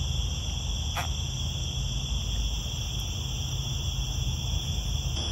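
Steady chorus of night insects: several high-pitched tones held unbroken and layered together over a low rumble. One light click about a second in.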